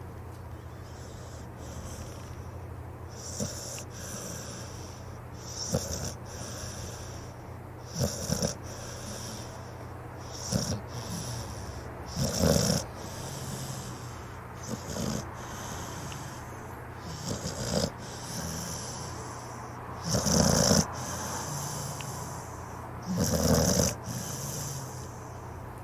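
Dog snoring in slow, regular breaths, a snore about every two to three seconds, the loudest two near the end, over a steady low hum.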